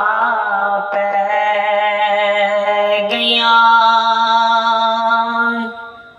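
A young man singing a naat solo, an Urdu devotional song, holding two long, slowly wavering notes. His voice fades out near the end.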